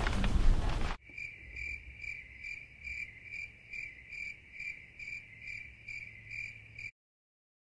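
Music stops abruptly about a second in, and a cricket chirps in a steady, even rhythm, about two to three chirps a second on one pitch, over a faint low hum. The sound cuts off suddenly near the end.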